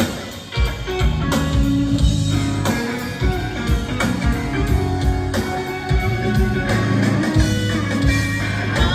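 Live rock band playing an instrumental stretch: electric guitar leading over bass guitar and a steady drum beat.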